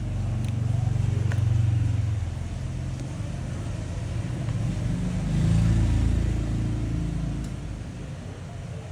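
Engines of passing road vehicles, a low hum that swells and fades twice as they go by.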